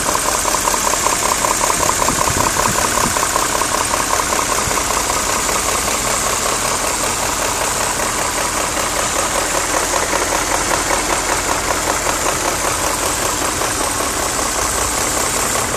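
BMW E39 M5's S62 V8 engine idling with a fast, even knocking tick in its running, a noise the owner wonders could be the VANOS variable valve timing.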